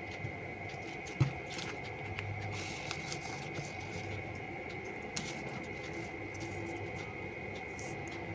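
Aluminium-foil paper crinkling and rustling as hands smooth it and fold and crease its bottom edge, with a single knock about a second in. A steady high whine runs underneath.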